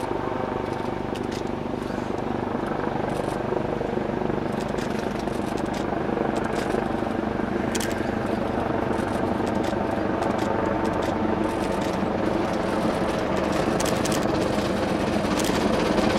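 Steady drone of a helicopter overhead, mixed with the exhaust beats of steam locomotive C56 160 working hard, growing louder as the locomotive approaches.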